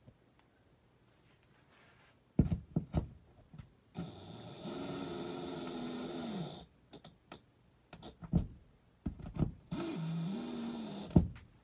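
Drill driving a metal drywall anchor into drywall: sharp knocks and clicks, then the drill's motor running for a little under three seconds and slowing as it stops. After more knocks, a second, shorter run of the drill.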